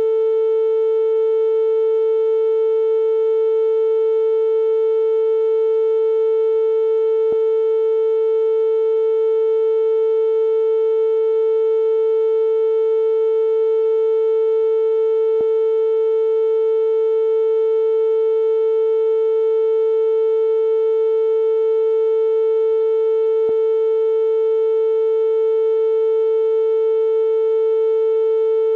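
Steady, unbroken electronic tone at one mid pitch, with weaker overtones above it, sold as an ear-unclogging frequency. Faint clicks come about every eight seconds.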